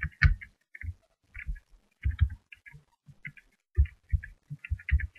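Typing on a computer keyboard: separate, irregular keystrokes, each a short click with a dull thump, about two to three a second.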